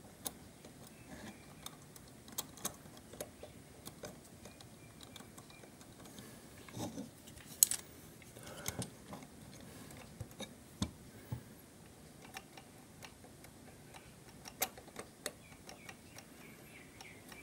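Faint, irregular small clicks and taps of an Ansonia clock movement's wheels and parts being handled, a little busier about halfway through.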